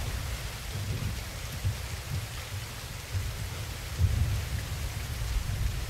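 Heavy rain falling steadily, with low rolling thunder rumbles underneath that swell about four seconds in.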